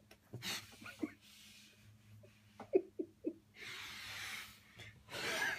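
A person breathing out hard in long, breathy hisses, two of them in the second half. In between come three short, soft low knocks, the first of them the loudest sound, as a stuck device is worked loose inside a rigid clear plastic case.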